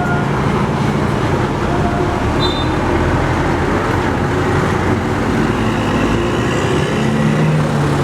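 Road traffic with a large bus's diesel engine running steadily over tyre and road noise. The engine note rises slightly near the end, and a short high tone sounds near the start.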